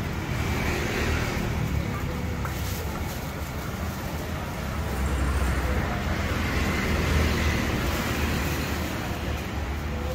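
Steady low rumble of road traffic, a little louder around the middle, with voices in the background.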